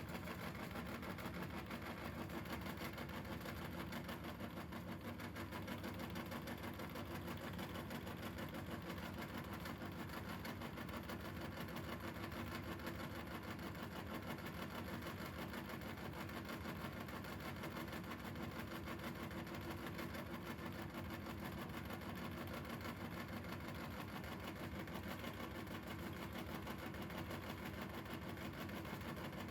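Electric meat grinder's motor running steadily, a constant hum with no pauses or changes.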